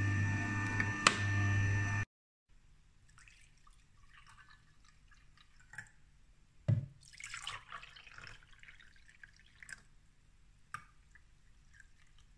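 Electric juicer running with a steady hum and whine for about two seconds. The sound then cuts off, and juice is poured from the juicer's plastic jug into plastic cups: a knock of the jug near the middle, then liquid pouring and dripping, and a few light clicks.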